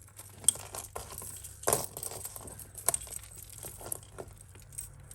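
Tangled costume jewellery chains and pieces clinking and rattling as they are handled and pulled apart, with a sharp clink about half a second in and a short clatter near two seconds.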